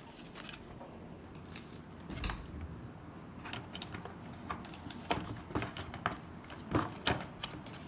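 Plastic toy parts being handled and fitted together: a run of small irregular clicks and knocks, coming thicker in the second half.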